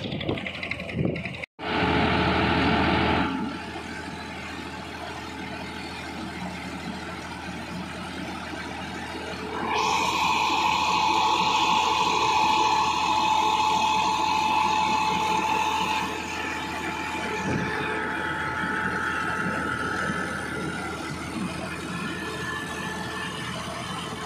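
Tractor's diesel engine running steadily as it tows and drives a mobile brick-making machine. There is a louder stretch with a steady whine from about ten to sixteen seconds in.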